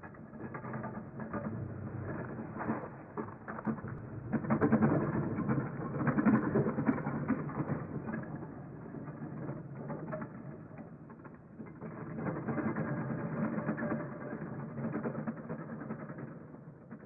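Train carriage in motion heard from inside: a steady rumble with dense rattling and clattering that swells and fades twice.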